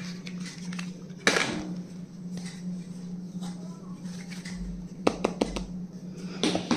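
Small stationery items being handled: a sharp crack about a second in and a quick run of clicks around five seconds, over a steady low hum.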